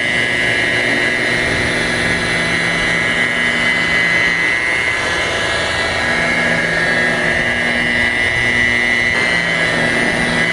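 Corded rotary polisher running steadily with a wool pad, buffing polish on a car's painted hood: a steady motor whine over a lower hum.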